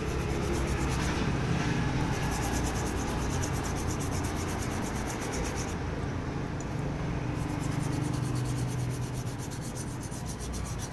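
Small brush scrubbing a phone circuit board in fast, even back-and-forth strokes, washing flux paste residue off with cleaning liquid. A steady low hum runs underneath.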